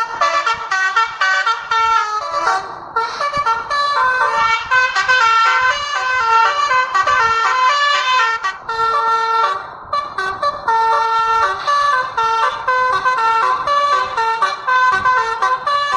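Bus 'telolet' basuri horn, a multi-tone air horn, playing a quick, jumpy tune of short notes that step rapidly between pitches, with a few brief pauses.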